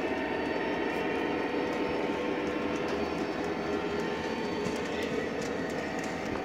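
O gauge model train running on the layout's track: a steady motor whine with the rolling rumble of the wheels and faint clicking over the rails.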